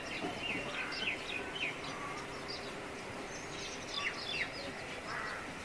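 Several small birds chirping over a steady outdoor background hiss, their calls bunched in two flurries, the first starting about half a second in and the second around three to four and a half seconds in.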